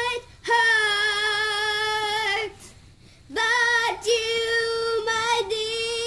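A girl singing long, held notes without words: one note held for about two seconds, then after a short break a longer stretch of held notes with a slight wobble.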